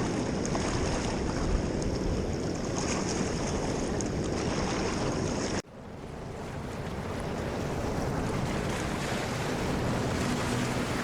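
Steady rush of river water with wind noise on the microphone; it cuts off abruptly about halfway through and fades back in.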